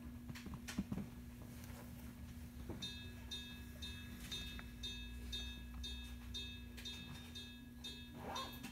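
A bell or chime dings rapidly and evenly, about two and a half strikes a second, starting about three seconds in. Under it is the steady hum of a stopped electric railcar.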